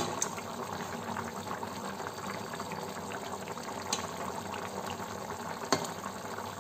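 Chicken curry gravy with potatoes simmering in a kadai, with a steady fine bubbling crackle. A metal spoon clicks lightly against the pan a few times: at the start, about four seconds in and again near the end.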